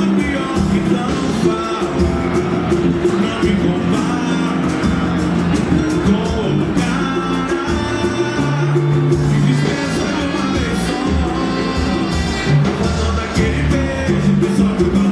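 A band playing a song with a lead vocal; the music runs steadily throughout.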